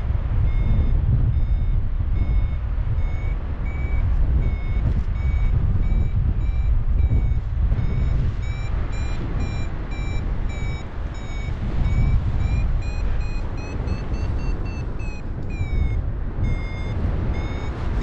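Paragliding variometer beeping a run of short, evenly repeated tones, the beeps quickening and rising in pitch partway through, then falling back: the climb tone, signalling that the glider is going up in lift. Under it, a heavy rush of wind on the microphone.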